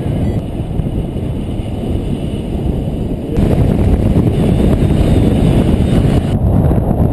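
Strong wind buffeting the microphone in a continuous low rumble, which grows louder about a third of the way in.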